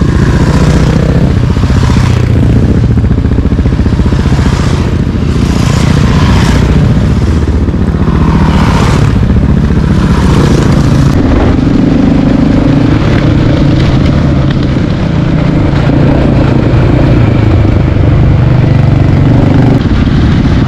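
Dirt-bike engines running on a gravel road: in the first half several motorcycles ride past one after another, each passing as a brief rush of engine noise; after about eleven seconds a steady engine drone from a bike riding along behind another.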